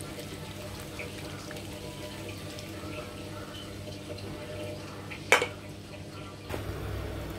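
Chicken wings cooking in a frying pan with soy sauce, oyster sauce and cola, the liquid giving a steady wet hiss. A single sharp click about five seconds in.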